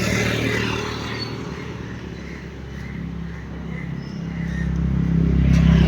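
Road traffic passing, with a vehicle's engine hum growing louder in the last second or so as it comes close.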